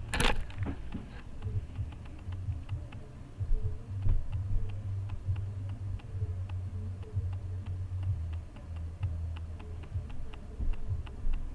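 A sharp click just after the start, then faint steady ticking at about four ticks a second over a low, uneven rumble of handling close to the microphone.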